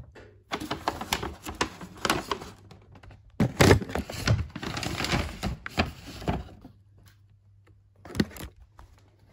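Shopping being rummaged through by hand: paper and cardboard rustling and crackling, with knocks of boxes and objects being moved about. The loudest knocks come at about three and a half seconds, and there is a single knock near the end.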